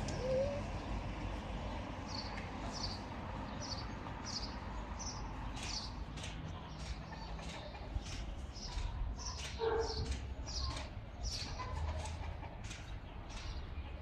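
Small birds chirping in short, high notes, more and more often in the second half, over a steady low outdoor rumble. One short, lower call comes about ten seconds in.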